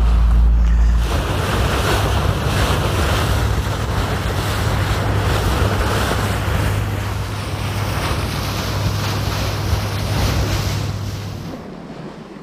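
Wind buffeting the microphone and sea wash aboard a fishing boat, over a steady low hum that drops away near the end.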